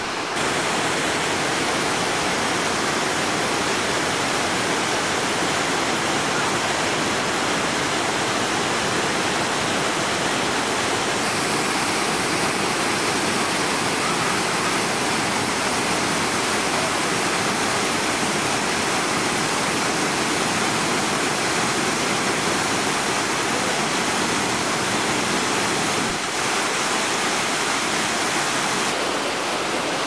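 Waterfall and rocky stream: a steady, loud rush of falling and tumbling water, its tone shifting slightly a third of the way in and again near the end.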